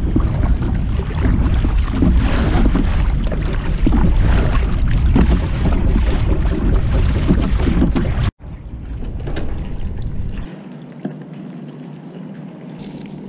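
Wind buffeting the microphone and water splashing as a kayak is paddled with a double-bladed paddle. After a sudden cut about eight seconds in, quieter water lapping with the kayak at rest.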